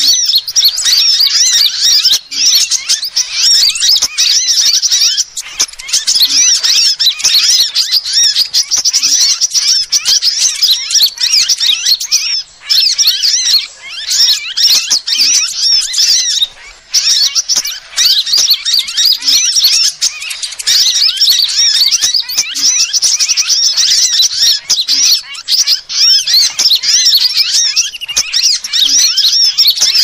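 Bird-lure recording of mixed sunbird calls: dense, rapid, high-pitched chirps and twitters, almost unbroken, with a couple of short pauses.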